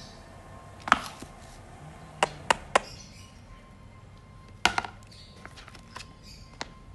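Thick cardboard pages and covers of a children's board book knocking and tapping as the book is turned over, opened and its page turned. There is one loud knock about a second in, three quick knocks around two and a half seconds, another near five seconds, and lighter taps in between.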